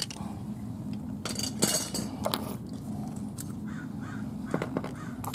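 Metal hand tools being moved aside: a few scattered clinks and knocks.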